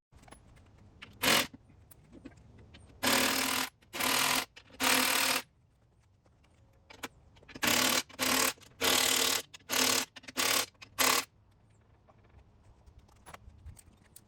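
Power impact wrench run in short bursts while tightening bracket bolts: one quick burst, then three, then six in close succession, each a rapid mechanical rattle lasting under a second.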